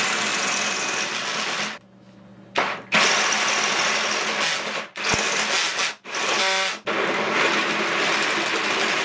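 Ryobi cordless drill running, spinning the geared mechanism of a 3D-printed jellyfish so its plastic tentacles whirl. It stops about two seconds in, starts again, and pauses briefly twice more near the middle.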